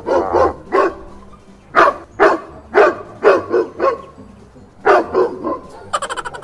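Recorded dog barking played through a loudspeaker as a fake dog: about a dozen short, sharp barks in irregular groups, with a quick rattle of clicks near the end.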